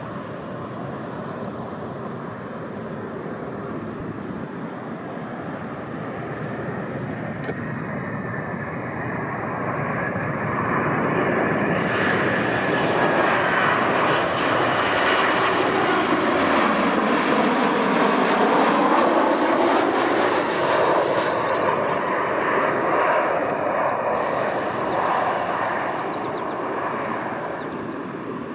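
Jet airliner flying past: engine noise builds over several seconds with a high whine, peaks in the middle, then fades away.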